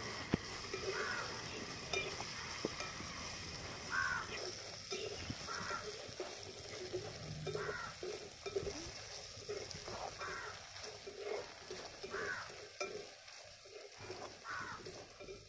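Crushed ginger and garlic sizzling in hot coconut oil in a metal pan, with a slotted spatula stirring and scraping through it in repeated strokes.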